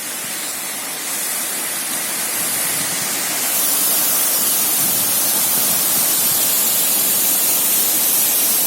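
Mountain waterfall rushing, a steady dense roar of falling water that grows louder about a second in and again a few seconds later, then holds steady.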